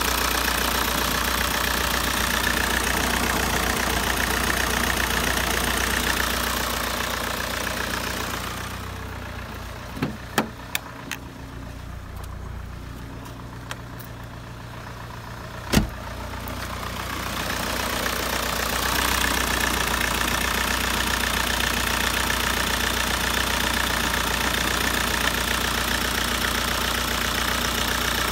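Common-rail diesel engine idling steadily, heard close up in the engine bay. About a third of the way in it fades to a much lower level for roughly ten seconds, with a few sharp clicks, then comes back up.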